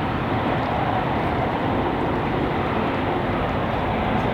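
A train passing, a steady loud rushing rumble.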